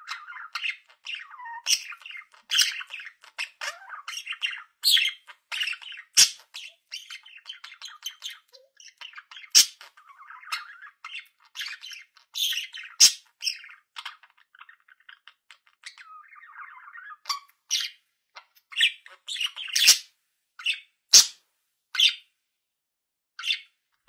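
Budgerigar chattering: a fast warbling babble of chirps broken by many sharp, loud squawks, with a few short pauses.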